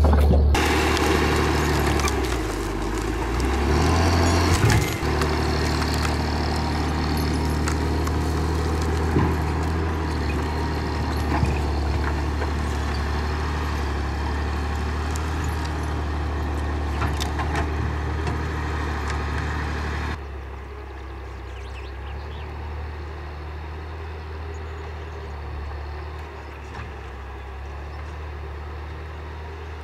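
HSM 904 skidder's 6.7-litre, 150 hp diesel engine running steadily while the machine drags a long log, with a few scattered knocks and cracks. About twenty seconds in, the sound drops to a quieter, duller engine run.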